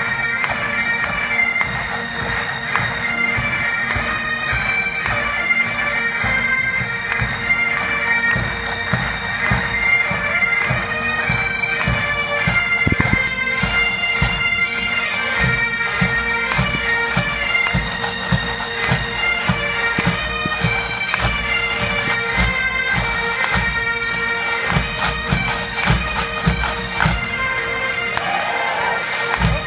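Massed pipes and drums playing: bagpipes carry a melody over their steady drone, with drums beating a march rhythm. The drum beats grow stronger about halfway through.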